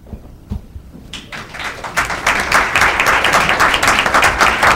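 Audience applauding, starting about a second in and swelling to full, steady clapping.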